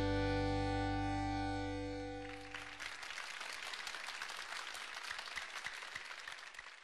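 A conjunto band's final held chord, button accordion over bass and guitar, rings on and dies away over the first two to three seconds. Applause follows and fades out near the end.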